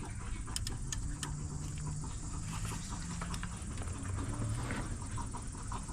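Hand tools and loose car parts being handled during disassembly: a few sharp clicks near the start, then faint scattered ticks and scrapes, over a steady low rumble.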